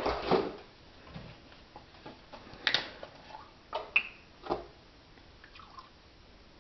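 A handful of light knocks and clicks, spread between about two and a half and four and a half seconds in, from fetching and handling a plastic milk jug at a kitchen counter.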